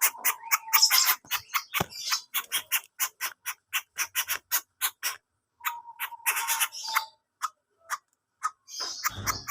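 Coucal giving a strange, harsh call: a fast run of dry clicks, about four a second, with a thin held tone under them near the start and again in the middle. A short rustle comes near the end.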